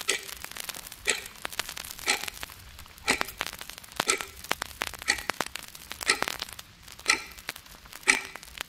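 Wall clock ticking steadily, one sharp tick about every second.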